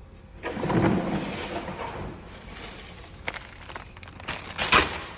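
Rustling and clattering of things being handled, with a few sharp knocks. It is loudest about a second in and again near the end.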